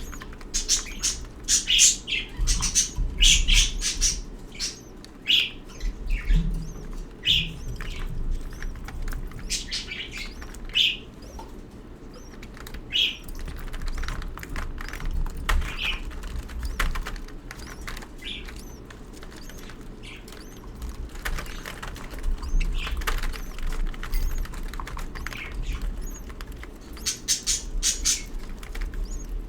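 Budgerigars chirping in the nest box: many short high chirps that come thick in the first few seconds and again near the end, more scattered in between.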